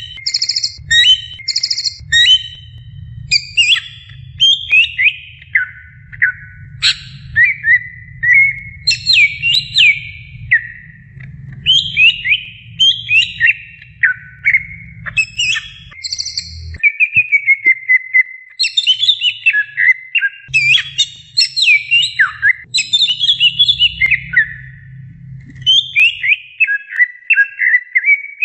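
Greater green leafbird (cucak ijo) singing continuously: rapid runs of loud whistled notes that slide up and down, with quick chirps and short buzzy high trills between the phrases.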